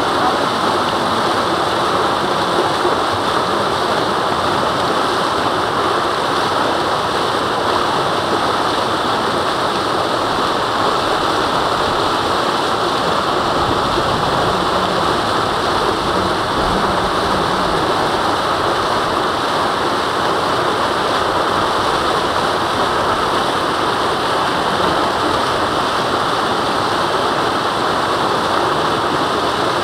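Small mountain stream rushing steadily over rocks, a continuous even water noise.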